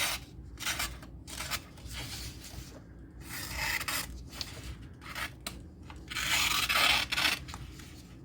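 A sharp pocket-knife blade slicing through a sheet of printer paper, making a series of short hissing cuts. Longer, louder slices come about three and a half seconds in and again around six seconds. The sound shows how cleanly the edge cuts the paper.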